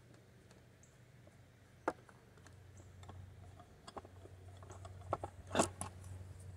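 A small bar clamp being released and lifted off a stack of cherry wood boards, with a few light clicks and knocks of the clamp and wood, the loudest a little after five seconds in, over a faint low hum.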